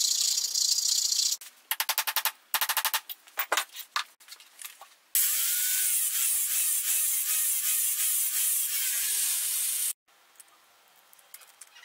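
Steel being worked by hand and machine: a hand file rasps on a knife guard in short strokes, then an angle grinder with a cut-off disc cuts into a steel knife blank for about five seconds, its whine rising and falling as it bites, and stops abruptly near the end.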